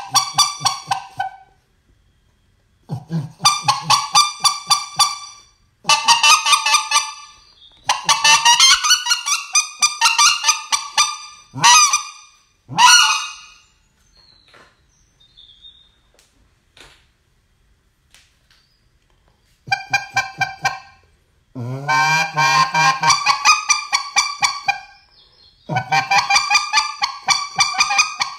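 Goose call blown in bursts of fast, high honks, each burst one to three seconds long, with a pause of several seconds in the middle.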